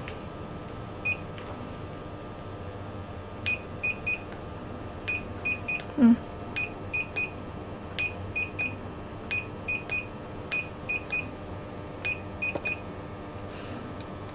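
Plasma beauty machine beeping as its energy output is test-fired: one short beep, then triplets of short, high beeps repeating about every second and a half. A single loud low knock comes about six seconds in.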